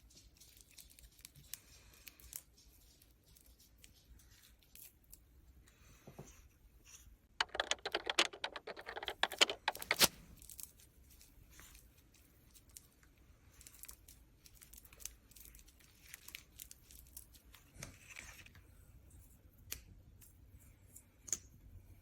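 Close-miked handling of small objects and paper: scattered light clicks and taps, with a loud burst of rapid, crackly tearing-like noise about seven to ten seconds in.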